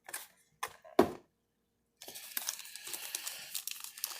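A few sharp clicks and taps, then after a second of dead silence, a continuous crinkling of plastic trading-card packaging being handled and worked at to open it.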